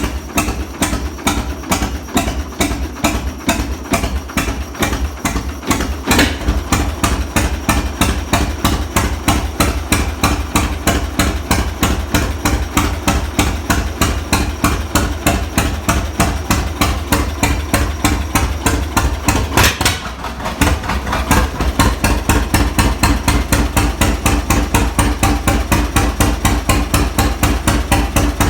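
John Deere Model A tractor's two-cylinder engine running with its even, rapid popping exhaust beat. About twenty seconds in the beat dips briefly, then picks back up.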